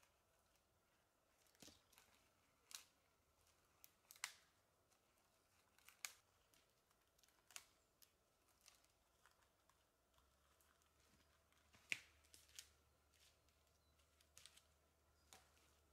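Dry twigs and dead branches snapping by hand: about a dozen faint, sharp cracks at irregular spacing, the loudest about four seconds in and near twelve seconds.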